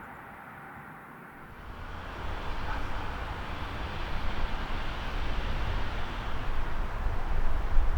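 A train approaching along the line: a rumble of wheels and running gear that starts about a second and a half in and grows steadily louder.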